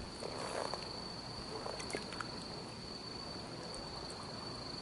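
Faint wet rustles and a few small clicks of a rope line being handled at an octopus burrow in tidal mud, over a steady high-pitched whine.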